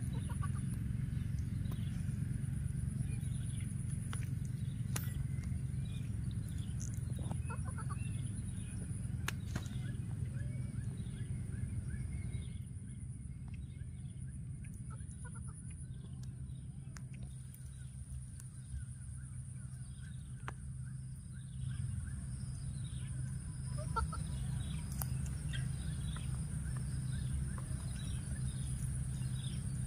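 Outdoor field ambience: a steady low rumble and a thin, steady high-pitched whine, with many short falling chirps coming in quick series. The chirps thin out in the middle and come back near the end.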